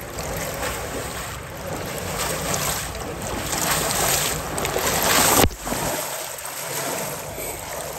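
Water rushing and splashing steadily, as in a swimming pool during swimming, with an abrupt change about five and a half seconds in, after which it is a little quieter.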